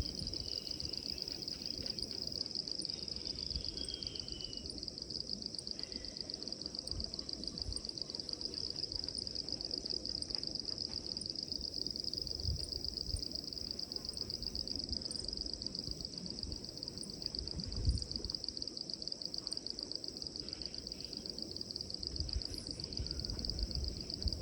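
Steady high-pitched trilling chorus of small animals that never lets up, over low rumbling noise, with a single knock about eighteen seconds in.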